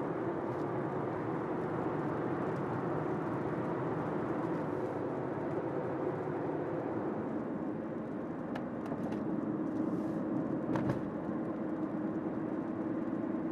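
A car driving at speed, heard from inside the cabin: a steady drone of road and engine noise, with a few light clicks about two-thirds of the way through.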